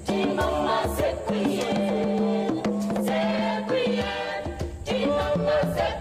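Background music: voices singing over percussion and a held low note.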